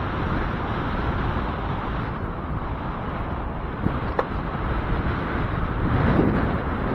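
Wind buffeting the microphone of a moving bicycle, gusting stronger near the end, with a single short click about four seconds in. The gusty wind comes from the approach of a hurricane.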